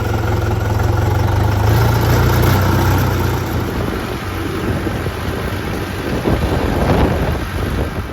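Heavy diesel engine running close by, a steady low drone that turns rougher and more uneven in the second half.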